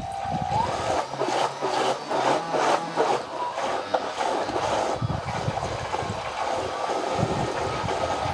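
Small electric motor driving a 3D-printed 25 mm three-blade model-ship propeller with 40 mm pitch in a water tank, run at part throttle. The motor whine rises quickly in the first second and then holds a steady pitch, over churning, splashing water as the propeller draws air down into the tank.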